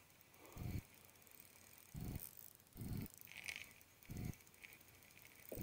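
Spinning reel cranked in short turns while a hooked trout is played, a faint gear whir coming about five times, roughly once a second.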